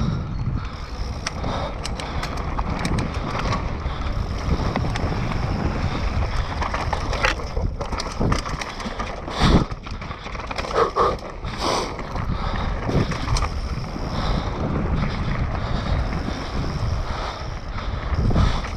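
Mountain bike riding fast down a dry, rocky dirt trail: tyres rolling over dirt and stones, with the bike rattling and knocking over bumps and wind buffeting the microphone. Sharp knocks come scattered throughout, the loudest about halfway through.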